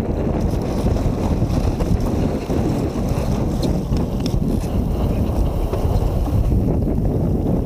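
Wind buffeting the microphone over the rush of water along the hull of a small sailboat under way.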